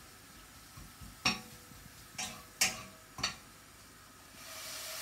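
A spatula knocks against a stainless-steel kadhai four times while spice masala is stirred, then near the end a rising sizzle starts as ground tomato purée goes into the hot masala.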